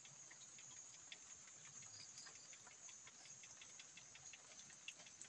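Faint, steady high-pitched chorus of insects, crickets or similar, with scattered faint ticks.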